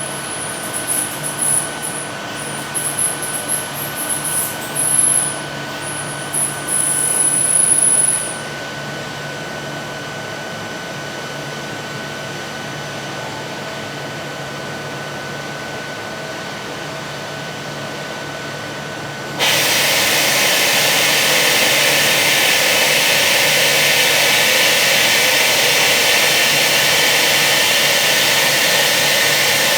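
Automated machining cell running: a steady machine hum, with a high-pitched whine that comes and goes for about the first eight seconds. About twenty seconds in, a loud, steady hiss starts suddenly.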